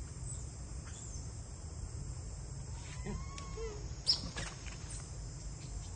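A steady high trilling insect chorus with a low rumble beneath. Scattered short, high-pitched gliding calls come through, loudest a sharp chirp about four seconds in.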